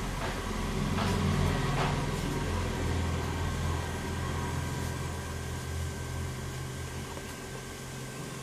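A steady low mechanical hum, with a few soft knocks and rustles in the first two seconds as wet banana leaves are laid on a metal steamer plate.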